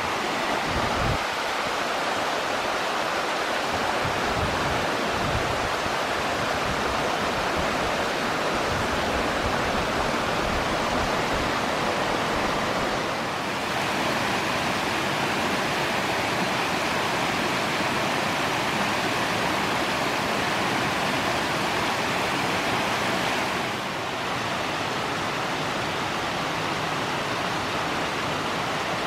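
Small forest stream running over rocks: a steady rushing of water that dips slightly in level about 13 seconds in and again near 24 seconds.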